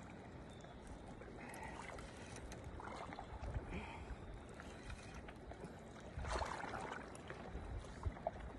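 Steady rush of moving water and wind noise, with a few brief louder swells, the loudest about six seconds in, and scattered small clicks.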